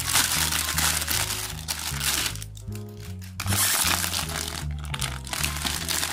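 Thin clear plastic bag crinkling as plastic model-kit runners are pulled out of it by hand, in two spells with a lull of about a second midway. Background music plays underneath.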